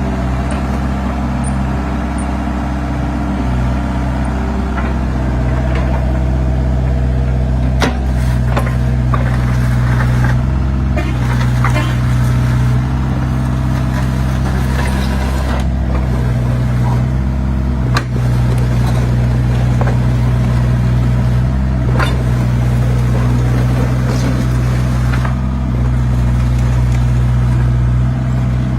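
Hyundai excavator's diesel engine running steadily, its note rising and falling as it takes hydraulic load while levelling soil, with occasional sharp metallic knocks from the bucket and arm.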